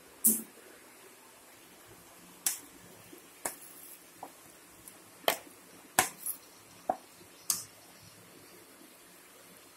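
A spoon clicking against a plate and the rim of an aluminium pan as ground masala paste is scraped off the plate into the pan: about ten sharp clicks at irregular intervals, stopping about three-quarters of the way through.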